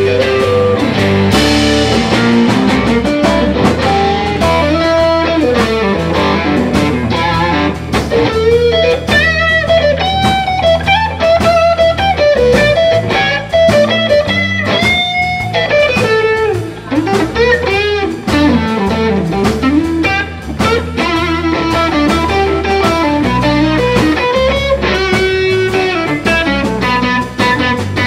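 Blues-rock band playing: a Stratocaster-style electric guitar solo with bent, sliding notes over bass and drums.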